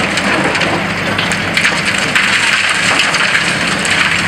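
Concrete rubble crackling and clattering down steadily as a long-reach demolition excavator breaks into a concrete office block, over the steady drone of the machine's diesel engine. The crackling thickens about a second and a half in.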